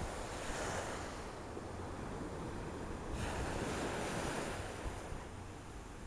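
Small surf washing up a sandy beach, swelling about half a second in and again around three seconds in, with wind rumbling on the microphone throughout.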